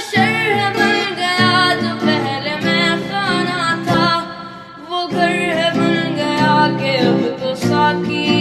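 Hindi song playing: a voice singing a wavering melodic line over guitar accompaniment.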